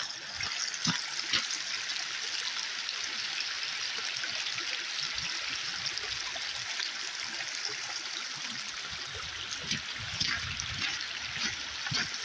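Snowmelt water running and trickling steadily along a thawing dirt road, with a few soft thumps near the end.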